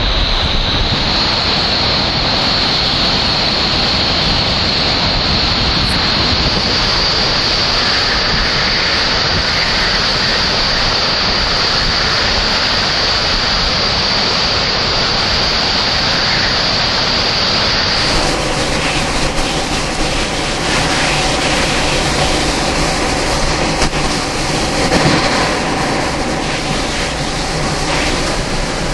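Category 3 hurricane eyewall wind blowing with wind-driven rain, loud and unbroken, buffeting the microphone. A steady high whistle runs over it until the sound changes abruptly about two-thirds of the way through.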